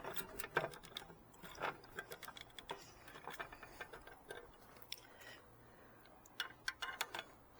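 Irregular light clicks and taps of a screwdriver and stiff Romex wires being worked inside an electrical box, with a short lull a little past the middle.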